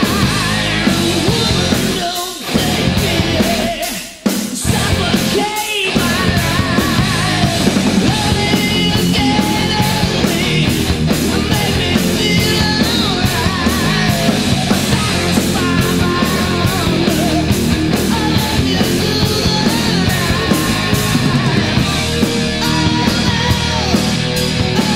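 1980s heavy metal band recording playing loud, with distorted electric guitar, bass and drums. The band stops short for brief breaks about two, four and six seconds in, then plays straight through.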